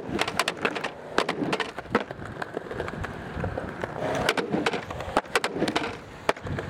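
Skateboard wheels rolling on pavement, with a run of sharp clacks and knocks as the board hits the ground during tricks.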